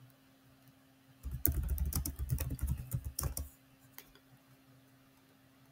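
Rapid typing on a computer keyboard: a quick run of keystrokes lasting about two seconds, starting about a second in, then a single keystroke a little later.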